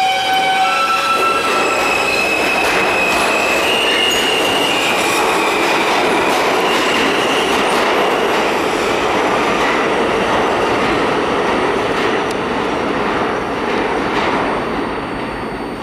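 NYC Subway R160 train pulling out of the station. Its propulsion whine steps up in pitch over the first few seconds as it accelerates, over the loud, steady rumble and rush of the cars going past, which eases a little near the end.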